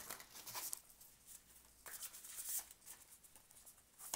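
Faint shuffling of a deck of oracle cards by hand: soft, scratchy slides of card against card in a couple of short spells, one at the start and one about two seconds in.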